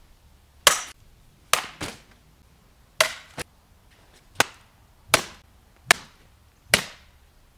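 Repeated sharp blows of a long metal bar smashing a laptop, about nine strikes in all. The last five come at a steady pace, a little under one a second.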